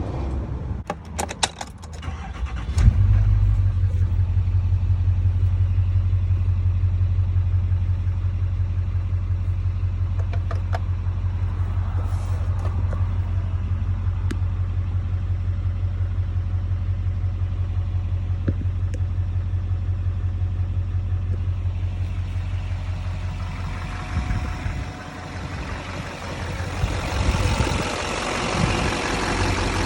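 2007 GM LBZ Duramax 6.6-litre V8 turbodiesel cranked and started, catching about three seconds in and settling into a steady low idle. In the last several seconds the engine note dips and changes, and a louder hissing sound rises over it.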